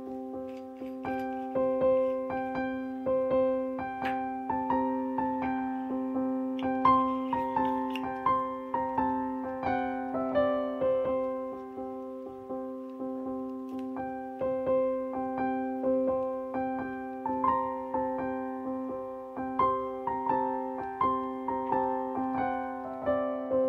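Background piano music: a slow melody of single struck notes over a steady held low chord.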